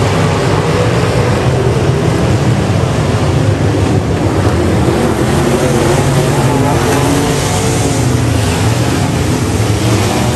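A pack of dirt-track race cars running hard around the oval together, several engines at once with pitches wavering up and down as the cars pass through the turns.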